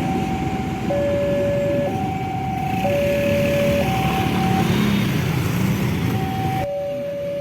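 Railway level crossing warning alarm sounding a two-tone hi-lo signal, each tone held just under a second, over a steady rumbling background. The alarm signals that a train is approaching the crossing.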